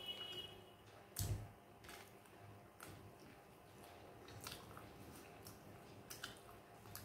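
Quiet hand-eating sounds: fingers picking at chicken and mixing rice and curry on a plate, with soft chewing and small clicks, and one louder knock about a second in.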